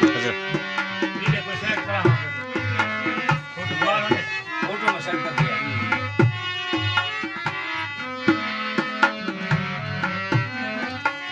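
Rajasthani folk music: tabla-like hand drums keep a steady beat under sustained pitched melody instruments.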